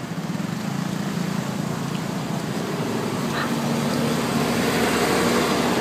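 A motor vehicle's engine running amid street traffic, a steady low drone that slowly grows louder.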